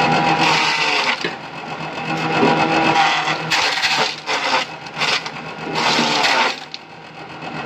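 Small grass chaff cutter running steadily, with three louder rushes of chopping as handfuls of grass are fed through the blades.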